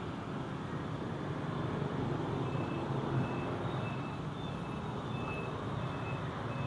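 Steady city street traffic: motorbike and car engines running past in a continuous hum. A faint high beeping repeats about twice a second through the middle.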